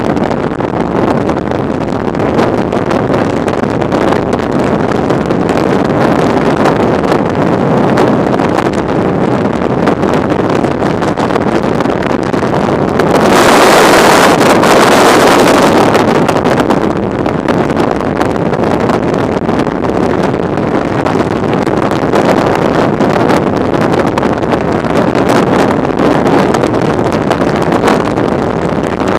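Freefall wind rushing over a helmet-mounted camera's microphone: a loud, steady roar of airflow that swells louder and brighter for about three seconds midway.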